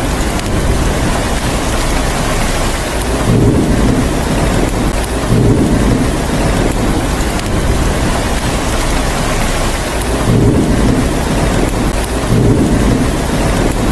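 Steady heavy rain hissing throughout, with four low rolling thunder rumbles swelling up and fading, two in the first half and two in the second.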